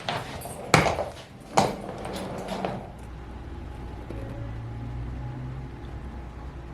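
Household handling sounds: two sharp knocks about a second apart, a little rustling and clatter, then a steady low hum.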